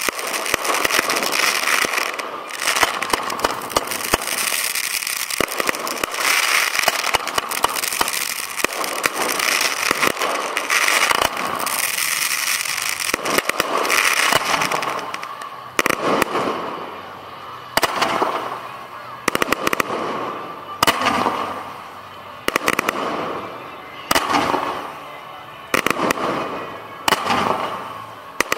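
Firework display heard from close to the launch racks: dense, continuous crackling and bangs of fireworks firing and bursting. About halfway through this gives way to separate launches and bursts roughly every second and a half, each fading off.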